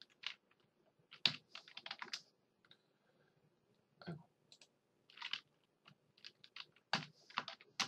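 Computer keyboard keys tapped in short, irregular clusters as short commands are typed.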